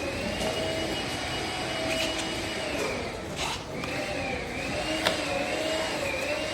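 A steady hum with a slowly wavering pitch over a noisy background, with a few sharp clicks about three and a half and five seconds in.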